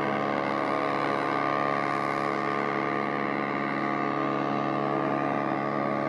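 A ship's horn sounding one long, steady blast.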